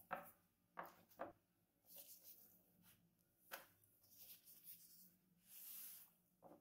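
Quiet kitchen handling sounds: a few light knocks of a rolling pin set down on a wooden board, with soft rubbing and rustling as gloved hands smooth and lift a sheet of croissant dough.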